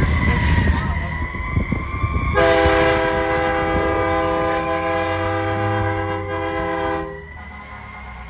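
Fire truck siren wailing over engine rumble. About two seconds in, the truck's air horn sounds one long, steady blast of about five seconds that cuts off suddenly, leaving the siren going faintly.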